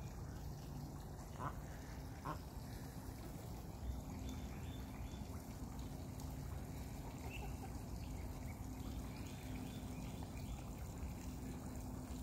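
A few short duck quacks, the first two about a second and a half and two seconds in, over the steady splashing of a pond fountain and a faint low hum.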